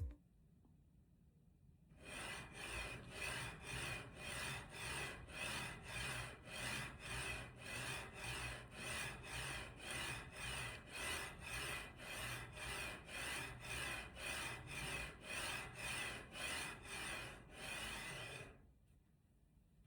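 YOSO YG series linear guide: the slider block running back and forth along its rail, a rhythmic rubbing rasp that pulses about twice a second over a faint low hum and a thin steady high tone. It starts about two seconds in and stops abruptly near the end.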